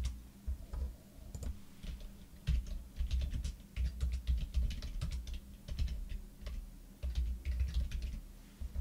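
Typing on a computer keyboard: keystrokes in quick irregular runs with short pauses between words.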